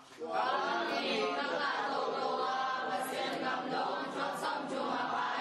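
Unaccompanied singing voices, chanting in long continuous held lines without a break.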